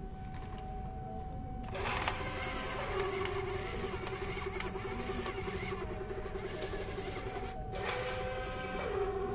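Small battery motor of a vintage Matchbox toy helicopter whirring steadily as it spins the rotor. It switches on about two seconds in, cuts out for a moment near the end and starts again.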